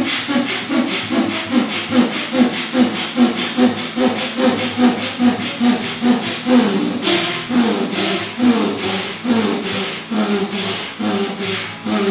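Bhastrika pranayama (bellows breath): rapid, forceful breaths in and out through the nose, about three a second, in an even rhythm.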